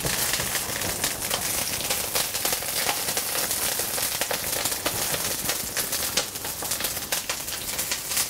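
Olive oil sizzling and crackling steadily in a stainless steel wok as a stuffed poussin roulade fries skin-side down with garlic and herbs, with many sharp pops over a continuous hiss.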